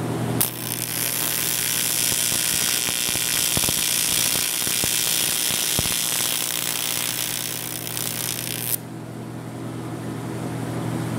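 TIG welding arc buzzing and hissing steadily as a weld is run on a high-strength aluminium forging, starting about half a second in with a few crackles along the way and cutting off sharply about nine seconds in. A steady low machine hum runs underneath.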